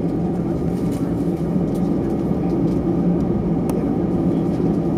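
Airbus A320's jet engines at taxi idle: a steady low hum with two held tones.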